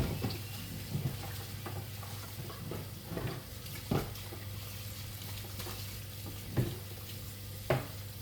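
Scattered knocks and clinks of a utensil against pots or dishes, about six in eight seconds, over a steady low hum.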